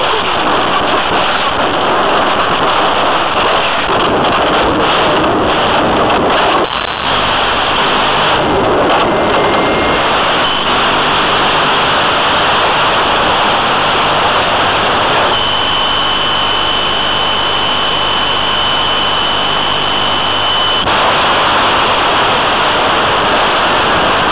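Steady loud hiss of static on the analog FPV audio downlink from the downed Sky Surfer glider, its motor stopped. A faint steady high tone sits in the hiss for a few seconds past the middle.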